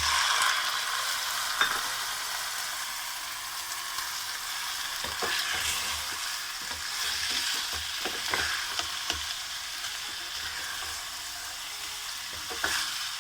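Raw chicken pieces sizzling loudly as they go into hot ghee and oil with fried onions and ginger-garlic paste, the sizzle strongest at first and then settling to a steady frying hiss. Short clicks and scrapes of stirring in the pan come every second or so.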